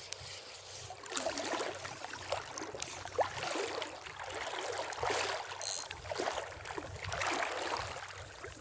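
Shallow seawater sloshing and splashing in several surges that swell and ease.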